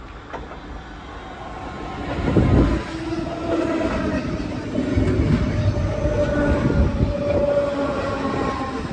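A German DB class 424/425/426 electric multiple unit running past, growing louder about two seconds in: low rumble of the wheels with a steady whine over it that slowly falls in pitch.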